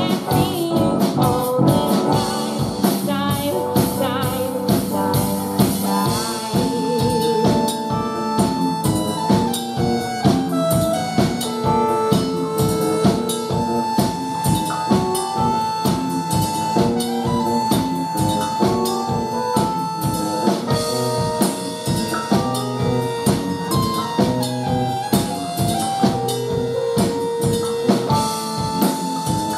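Live band playing amplified: a steady drum-kit beat under keyboards and electric guitar, with long held melody notes on top.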